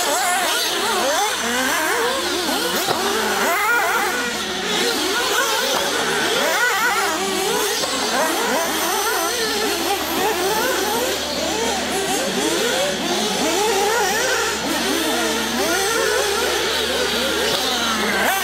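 Several 1/8-scale nitro RC buggies racing together, their small two-stroke glow engines revving, with many overlapping engine notes constantly rising and falling as the throttles open and close.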